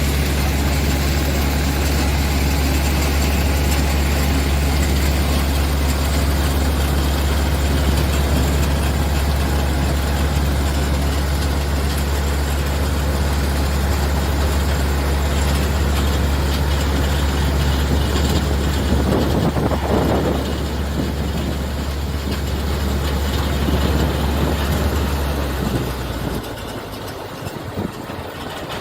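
Tractor diesel engine running steadily with a low, even hum, which drops away near the end.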